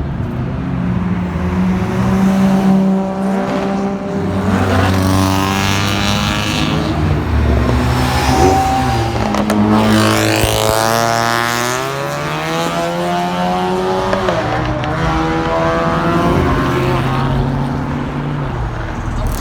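Performance car engine revving hard, its pitch holding, then climbing steeply and dropping again several times.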